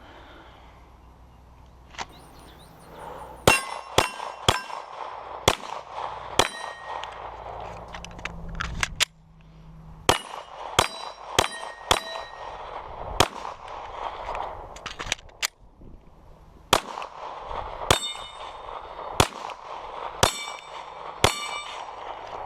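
A string of 9mm shots from a Glock 34 pistol, each followed by the ringing clang of a steel target plate being hit. The shots come in quick groups, with two brief pauses where magazines are swapped.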